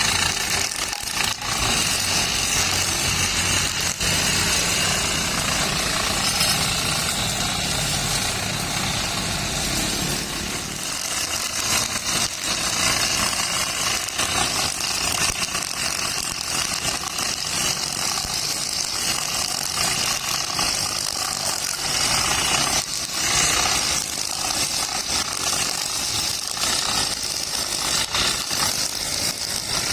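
Brush cutter engine running steadily, its nylon string line cutting grass.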